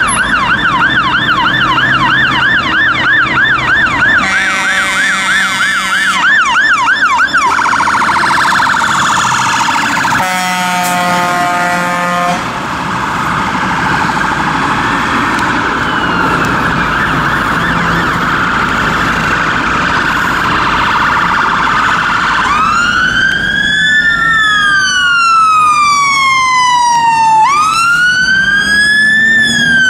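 UK fire engine sirens on an emergency run: a fast yelp at first, a roughly two-second airhorn blast about ten seconds in, and later a slow rising-and-falling wail that switches back to the yelp at the very end.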